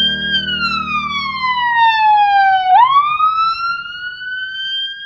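Ambulance siren wailing in a slow rise and fall. The pitch falls over about two and a half seconds, sweeps back up, and starts to fall again near the end. A steady low hum underneath stops about two seconds in.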